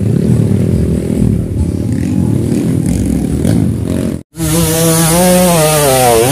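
Dirt bike engine revving hard and unevenly as it works up a steep dirt climb. About four seconds in, after a brief cut, one bike's engine runs at high revs, its pitch sinking as it labours up the slope.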